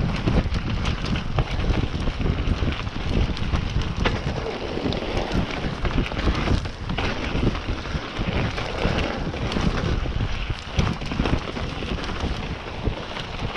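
Mountain bike being ridden down a trail: a constant rush of wind on the microphone and tyre noise, with frequent knocks and rattles from the bike over rough ground.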